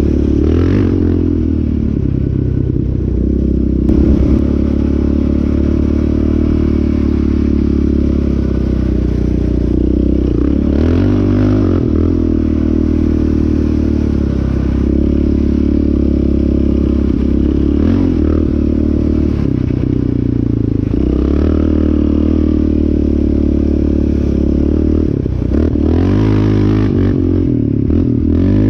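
Yamaha Raptor 700R sport ATV's single-cylinder four-stroke engine running hard while being ridden, its note rising and falling every few seconds with the throttle.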